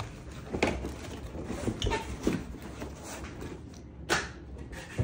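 Handling noise of a cardboard box, its moulded pulp insert and plastic wrap: scattered rustles and light knocks as an airsoft rifle is lifted out and set down, with a sharper knock about four seconds in.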